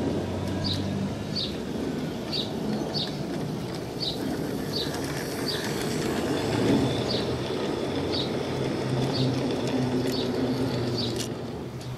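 G-scale model diesel locomotive running past with a string of ore cars: a low electric-motor hum and the wheels rolling on the rails, loudest about halfway through as the cars pass close. A bird chirps over and over, about three chirps every two seconds.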